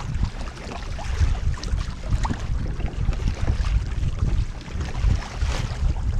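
Wind buffeting the microphone in an uneven low rumble, over light splashing of water against a kayak hull.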